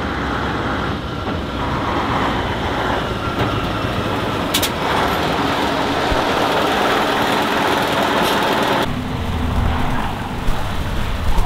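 Tatra truck driving on the wet skid pad, its engine running under a dense rushing noise that swells about two seconds in and drops away sharply near nine seconds. A short hiss comes about halfway through.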